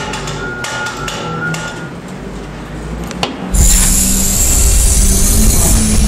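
Suspense sound effects: scattered knocks with a thin steady tone under them. About three and a half seconds in, a sudden loud rumbling, hissing noise starts and keeps going.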